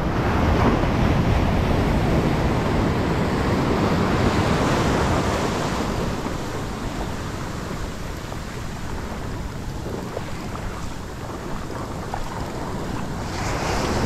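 Ocean surf washing up the beach, a broad hiss of foaming water. It is louder for the first few seconds, eases off, then builds again near the end.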